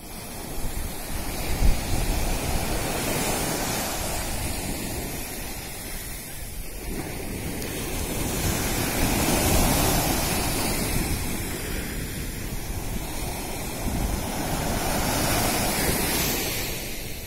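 Sea surf breaking and washing up a sandy beach, swelling and easing as each wave comes in, with wind buffeting the microphone.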